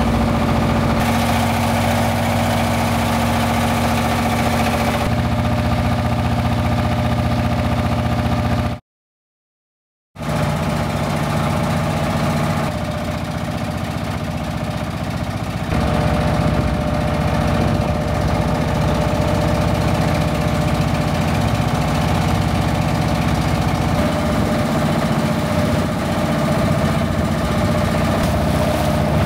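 Boat engine running steadily under way. The sound cuts out completely for about a second and a half some nine seconds in, then returns.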